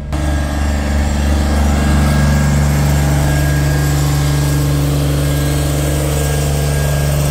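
A heavy diesel engine idling steadily. It grows a little louder over the first couple of seconds, then holds an even drone.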